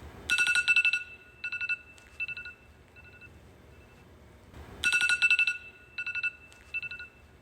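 Electronic alarm clock beeping on one high tone: a fast run of beeps, then shorter groups that grow fainter, the pattern starting over about halfway through.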